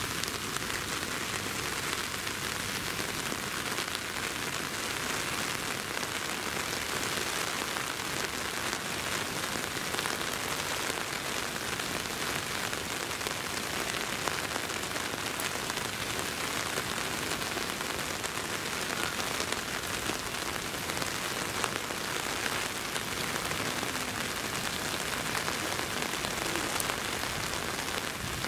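Steady rain falling: an even hiss with scattered faint drop ticks, unchanging throughout.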